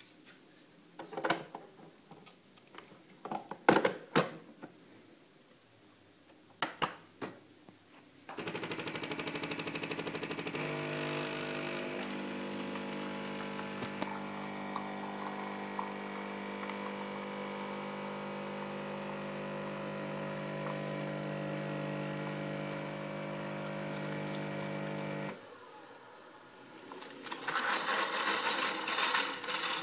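Bosch Tassimo pod machine: several clicks and knocks as a T Disc is loaded and the lid closed, then about eight seconds in the water pump starts with a steady hum that runs for about seventeen seconds and stops. Near the end, hot liquid starts hissing and splashing into the mug.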